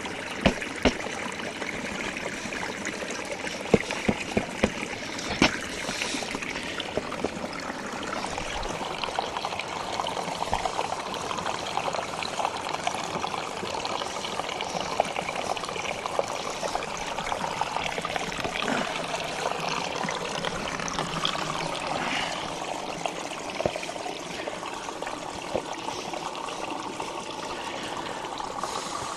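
Water running and trickling steadily, with scattered sharp taps and knocks, most of them in the first few seconds.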